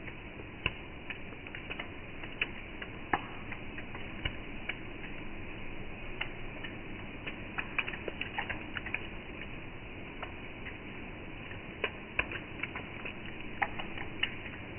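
Raindrops dripping: irregular sharp ticks of single drops striking a hard surface over a steady hiss of rain.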